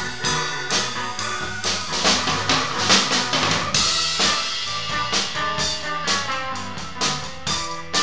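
Drum kit and electric keyboard playing together live: a steady beat of kick and snare strikes with cymbals washing brightly in the middle, over sustained keyboard chords.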